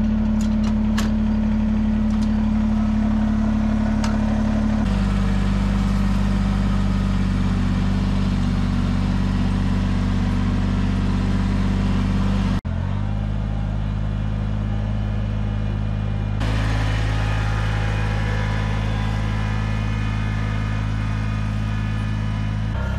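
Compact tractor's engine running at a steady speed while it drives. Its pitch and loudness shift abruptly three times, about 5, 12½ and 16½ seconds in.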